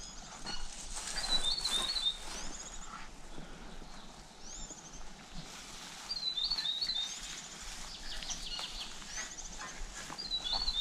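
A songbird singing a short phrase of rapid high chirps three times, about every four seconds, over footsteps swishing through long grass.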